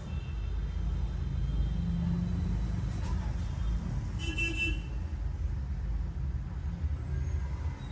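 Low, steady rumble of road traffic, with a short high-pitched tone about four seconds in.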